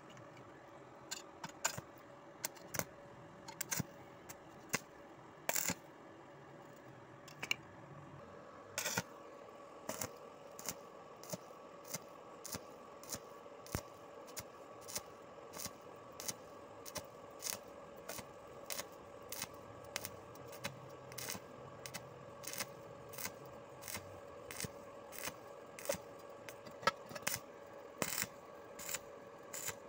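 Stick welding a corner joint in hollow square iron, the arc struck and broken in short bursts: irregular at first, then a steady rhythm of about one and a half bursts a second from about a third of the way in, over a faint steady hum.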